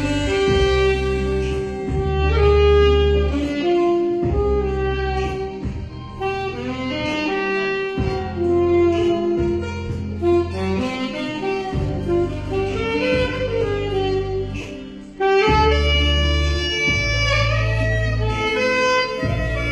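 Alto saxophone playing a slow, lyrical melody live, over an accompaniment of long, held bass notes. About fifteen seconds in it drops briefly, then comes back louder.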